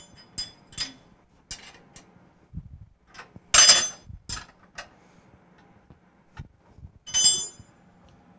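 Metal parts and tools clinking and tapping on a machine's fixture plate as a workpiece is clamped by hand: a run of light clicks and knocks, with two louder ringing clinks about three and a half and seven seconds in.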